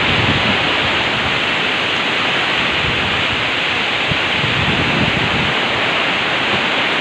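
Hail and rain falling in strong wind, a steady, dense rush of noise that stays even throughout.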